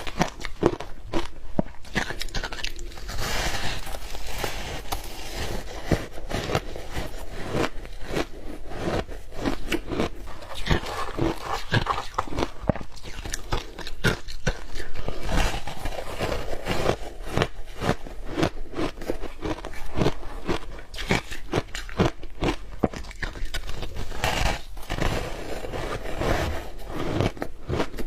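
Close-up crunching and chewing of blue shaved ice: a dense, irregular run of crisp bites and crunches, several a second.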